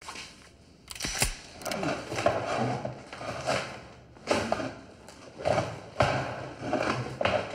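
Muffled, strained cries and groans from a gagged man, forced through tape over his mouth in repeated outbursts. A couple of sharp clicks come about a second in.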